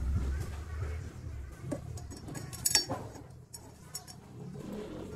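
Small metallic clinks and handling knocks from hands working on parts inside a rice mill's husk blower housing, over a low rumble, with the sharpest click a little past halfway.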